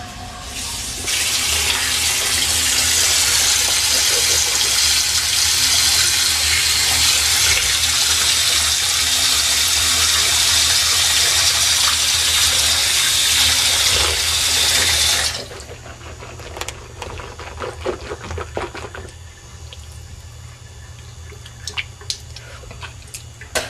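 Water running steadily, starting about a second in and cutting off suddenly after about fourteen seconds, followed by a few faint clicks and knocks.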